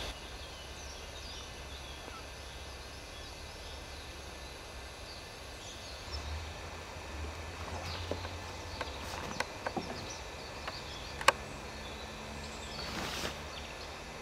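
Outdoor ambience: faint small-bird chirps over a low steady rumble, with a few sharp clicks, the loudest about eleven seconds in.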